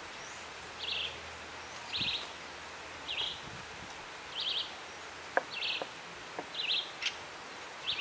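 A songbird repeating a short high call of a few rapid notes, about once a second, seven times.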